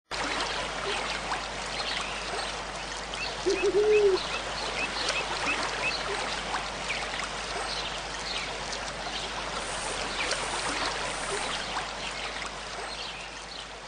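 Steady rush of a waterfall or stream, with small birds chirping now and then. About three and a half seconds in comes a brief low call, the loudest sound.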